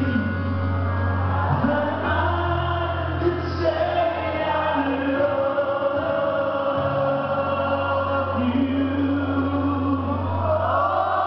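Live band music with singing, heard from the audience: long held sung notes over a steady, sustained bass.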